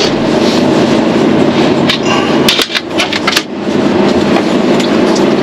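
Mercedes Actros truck engine running, heard from inside the cab as a steady drone. About halfway through, a quick cluster of sharp clicks or knocks sounds over it.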